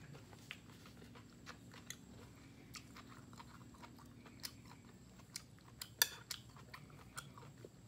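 Close-miked chewing of grilled beef rolls, with faint wet mouth clicks scattered throughout and one louder click about six seconds in.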